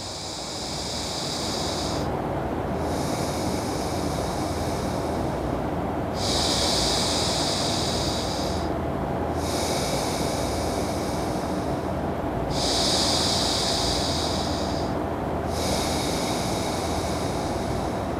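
Slow, audible breathing through one nostril, the other pressed shut with the thumb, in nadi shuddhi single-nostril breathing practice: six long airy breaths, each about two to three seconds, with short pauses between them.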